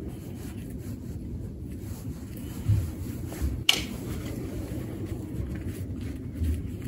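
Root hook scratching and raking through a tree's bare root ball, over a steady low wind rumble on the microphone, with a few soft thumps and one sharp click about three and a half seconds in.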